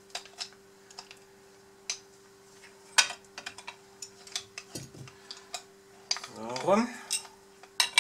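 Clicks, taps and knocks of the metal arm parts of a Huina 580 RC excavator being handled and fitted together on a workbench, the loudest knock about three seconds in. Near the end comes a brief rising pitched sound.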